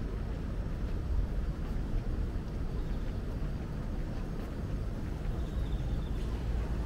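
Night city street ambience: a steady low rumble of traffic and background hum, with no single sound standing out.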